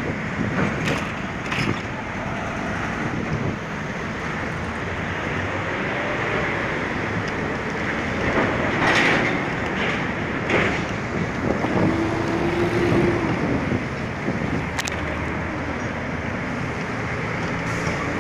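Close city road traffic: engines of cars, vans and trucks running in slow traffic, with a steady wash of road noise and a few louder swells as vehicles pass.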